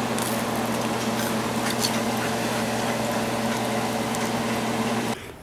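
Hot frying oil sizzling with scattered crackles over a steady electrical hum, cutting off suddenly near the end.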